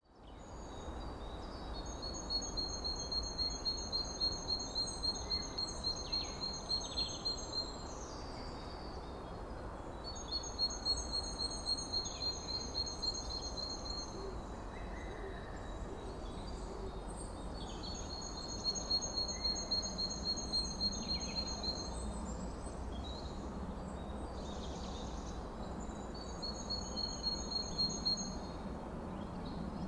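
Rhythmic high-pitched chirping, about two chirps a second on two pitches at once, in trains of several seconds that recur about every eight seconds over a steady low background noise.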